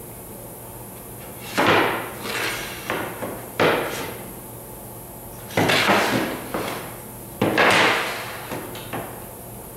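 Electric biscuit joiner cutting slots into a board's edge in several short bursts, each starting abruptly and fading within about a second.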